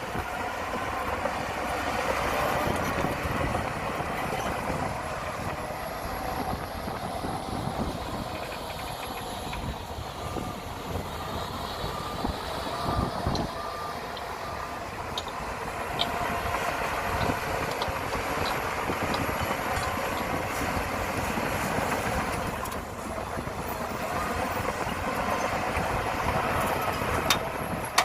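Heavy diesel earthmoving machinery, a bulldozer and dump truck, running steadily under work. A reversing alarm beeps about twice a second for a few seconds, roughly ten seconds in, and a few sharp clicks come near the end.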